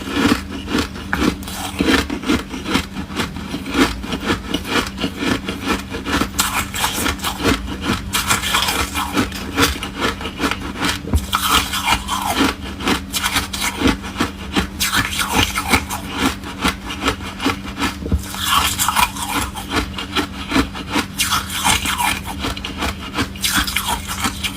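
Close-miked crunching and chewing of foam ice: a dense, continuous run of quick crackly crunches over a low steady hum.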